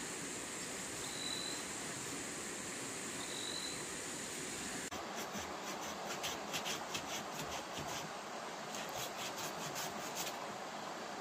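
Steady high insect trilling. After an abrupt change about five seconds in, it gives way to a run of quick, rhythmic rasping scrapes.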